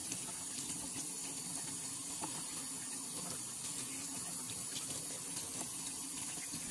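Kitchen faucet running steadily into a stainless steel sink, the stream splashing over a live blue crab held under it, with a few light clicks.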